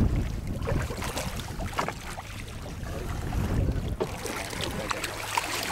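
Wind buffeting the microphone, with water splashing and sloshing around a landing net and a hooked ray at the surface beside a boat's hull, and a few short knocks.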